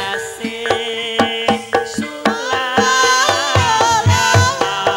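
Live Banyumasan ebeg accompaniment played through a sound system: a hand drum and struck tuned percussion in a steady beat, with a wavering sung or melodic line entering about two and a half seconds in.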